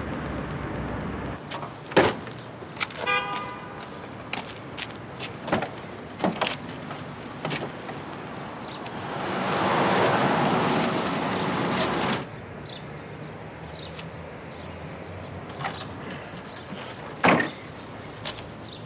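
Street ambience with scattered clicks and a short pitched toot about three seconds in. About nine seconds in an SUV drives past, its engine and tyre noise swelling and then cutting off abruptly about three seconds later; a sharp thud near the end.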